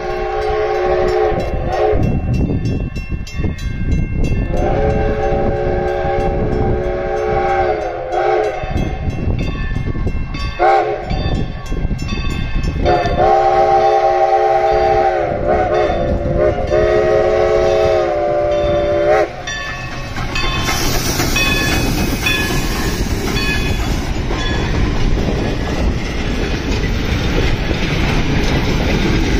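A steam locomotive's chime whistle blowing the grade-crossing signal: long, long, short, long, each blast several notes sounded together. It is followed by a steady rumble and rail clatter of the train rolling by.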